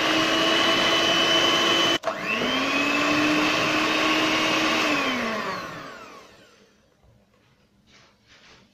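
Electric hand mixer running with a steady whine as its beaters mix flour into pancake batter in a steel bowl. It cuts out for a moment about two seconds in and spins back up, then winds down with a falling pitch around five to six seconds in. Faint clicks follow.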